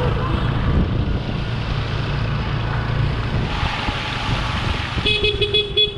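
Motor scooter running steadily as it rides through shallow floodwater, its tyres hissing and splashing through the water, with wind on the microphone. About five seconds in comes a short rapid high ringing.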